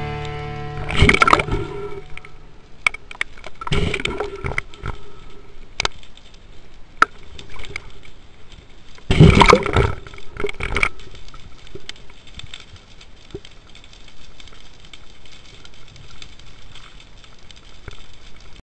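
Scuba diver's exhaled bubbles from the regulator gurgling past a mask-mounted camera in irregular bursts, the loudest about nine to eleven seconds in.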